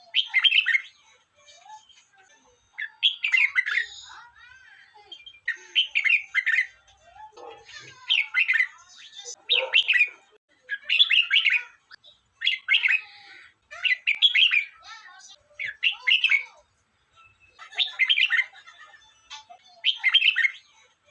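Red-whiskered bulbul singing: short, bright warbling phrases repeated every one to two seconds, with softer chirps between them.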